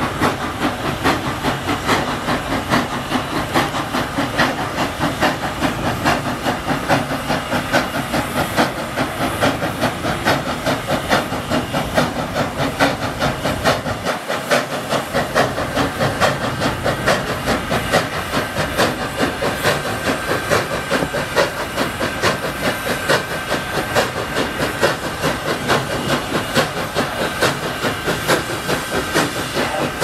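CNJ 113, a 0-6-0 steam locomotive, running with a steady hiss of steam and a fast, even beat.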